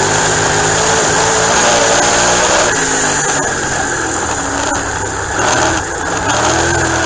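Dirt-track race car's engine running hard, heard from inside the cockpit. Its pitch rises and falls with the throttle, and it drops back briefly near the end.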